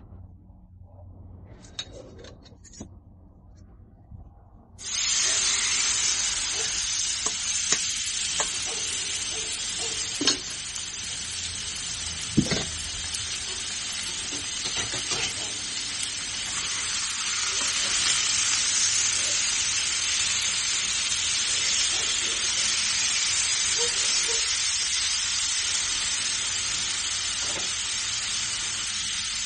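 Raw diced chicken frying in oil on a hot Blackstone flat-top griddle: a loud, steady sizzle that starts suddenly about five seconds in as the chicken goes onto the griddle. A few sharp knocks come through the sizzle.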